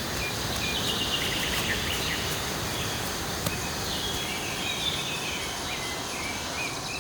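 Birds chirping again and again over a steady outdoor background hiss, with a faint high insect drone.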